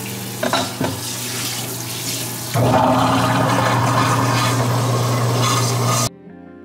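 Water from a pull-down kitchen faucet's spray running into a stainless steel sink as it is rinsed, with a couple of light knocks under a second in. The water gets louder about two and a half seconds in, then cuts off suddenly near the end, leaving quiet background music.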